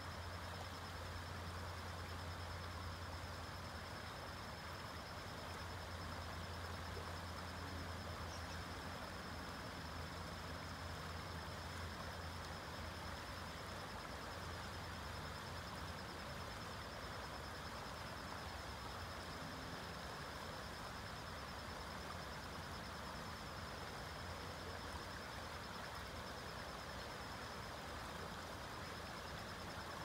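Shallow creek running over rocks, a steady rushing of water, with a continuous high insect trill over it.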